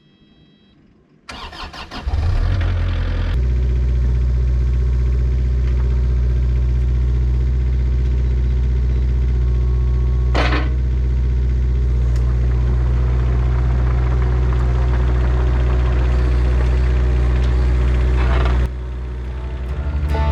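Kubota KX057 mini excavator's diesel engine cranking briefly and starting, then running steadily, with a single sharp click partway through.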